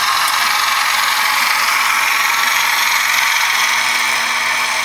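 Märklin HO-scale Schienenzeppelin model railcar running along the track with its propeller spinning, giving a steady, airplane-like whirring buzz.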